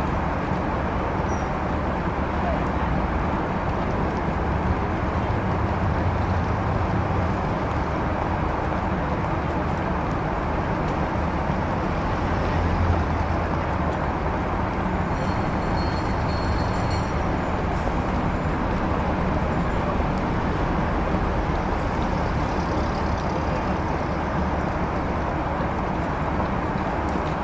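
City street ambience in a 1930s style: steady traffic noise with a low engine rumble throughout. A brief faint high tone comes about halfway through.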